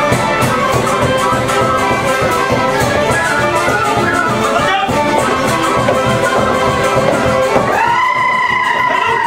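Hutsul folk dance music played by a small band of fiddles and accordion, at a quick steady beat. Near the end a single long high note is held over the band.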